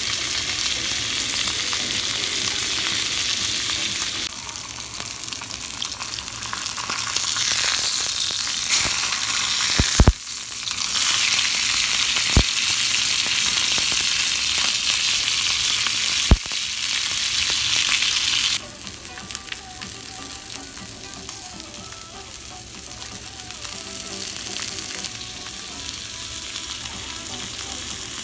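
Beef steak sizzling in oil in a cast-iron skillet. The sizzle grows louder in the middle and drops back abruptly about two-thirds of the way through, with three sharp clicks along the way.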